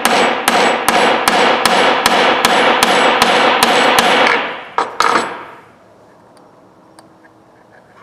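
Hammer tapping a punch to drive a part out of a Snap-on F723A 3/8 ratchet: steady metallic strikes about three a second with ringing between them, stopping about four seconds in, followed by two last taps about a second later.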